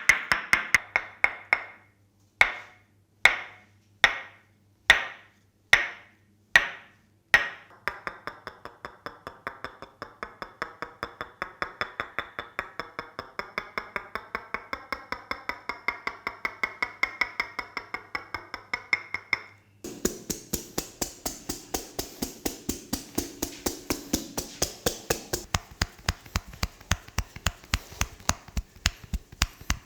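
Hands striking a person's body in rhythmic percussive massage tapping: quick strikes at first, then seven slower, sharper blows under a second apart, then a long, fast run of taps about five a second. About two-thirds through, the tapping switches abruptly to a brighter, crisper tone at a similar fast pace.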